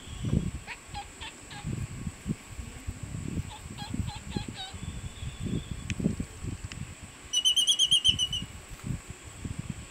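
Laysan albatross chick working dry needles and grass into its nest with its bill, with soft rustling, low thumps and two short runs of quick clicks. About seven seconds in, a loud, rapid trilled bird call lasts a little over a second.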